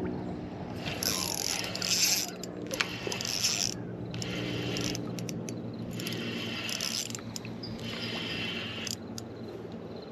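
Spinning reel being cranked in about five spells of a second or so each, with short pauses between, as the line is retrieved.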